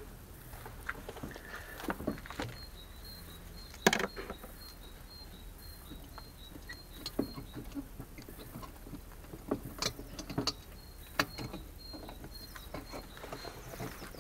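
Scattered clicks and knocks of hands working on a car's headlight assembly, the loudest about four seconds in, over a faint high-pitched tone that pulses on and off.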